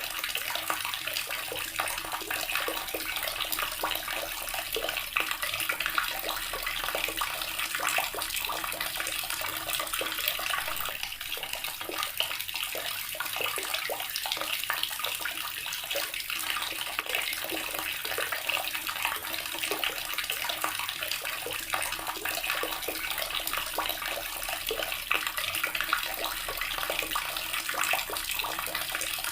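Water tap running steadily, its stream splashing into a basin.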